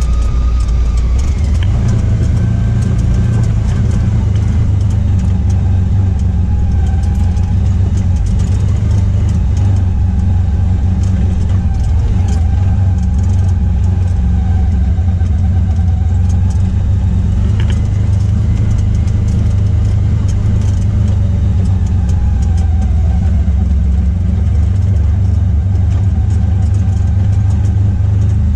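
Vehicle engine and drivetrain running steadily, heard from inside the cab as it drives over a dirt trail: a constant low drone.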